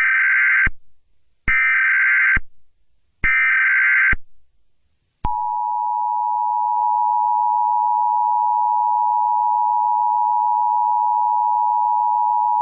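Emergency Alert System tones. Three short bursts of the digital SAME header data come about a second apart, then about five seconds in the steady two-tone attention signal starts and holds on.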